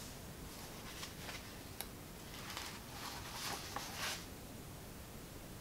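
Soft rustling of paperback book pages being leafed through, with a light click just before.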